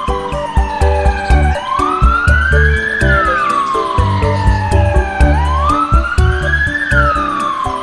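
An emergency-vehicle siren wailing, its pitch sweeping up and then slowly down about once every four seconds, over background music with a steady beat.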